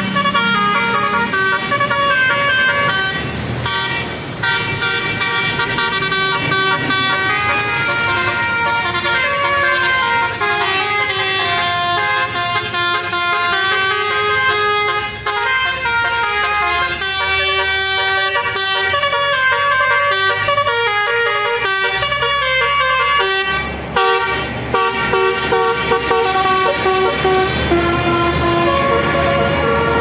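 Bus 'telolet basuri' musical air horn playing a tune, its notes stepping quickly from pitch to pitch almost without pause, over passing road traffic.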